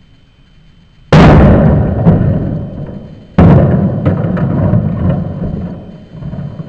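Two heavy hammer blows on a Steelbird SB-42 motorcycle helmet shell, about two seconds apart, each a sudden loud crack with a long booming decay, followed by a few lighter knocks. The blows are hard enough to break part of the helmet's shell.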